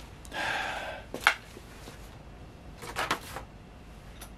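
Handling noises: a short rustle, a sharp click just after a second in, and a brief clatter of clicks about three seconds in.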